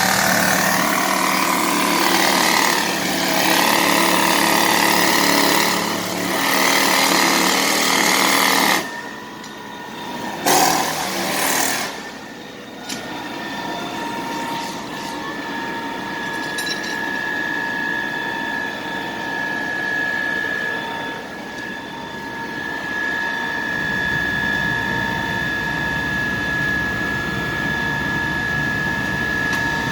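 Jackhammer hammering at close range for about the first nine seconds, then cutting off suddenly. Two short loud bursts follow, then a steady machine whine with street noise.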